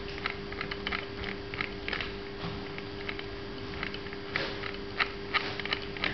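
Sewing machine mechanism making irregular light clicks and ticks, with a steady low hum underneath.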